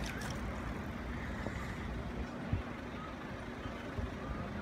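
Steady low rumble of road traffic idling at the closed crossing, with a faint constant hum. A single soft thump comes about two and a half seconds in.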